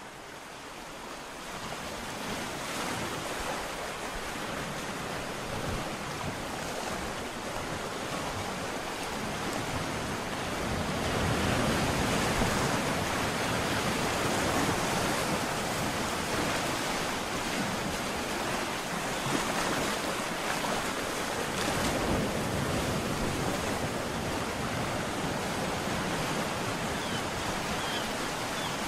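Ocean surf: waves breaking and washing on a shore, a steady rushing that fades in over the first couple of seconds and swells about ten seconds in.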